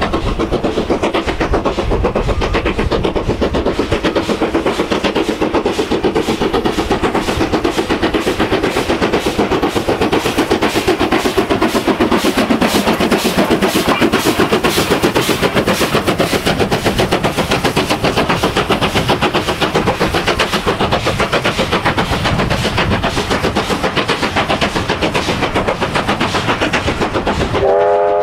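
USATC S160 2-8-0 steam locomotive working a passenger train past, its exhaust beating in a fast, even rhythm, with the coaches' wheels running over the rails behind it. A short whistle blast sounds near the end.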